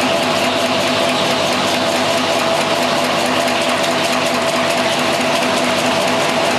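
Quail egg shelling machine running: a steady motor hum with a fast, even rattle of the rollers as eggs pass through.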